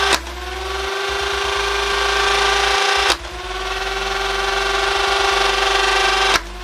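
Dart Zone Thunderbolt electric semi-auto blaster firing darts. Its motors whine at a steady high pitch, with three sharp shots about three seconds apart. The whine dips briefly after each shot and climbs back up.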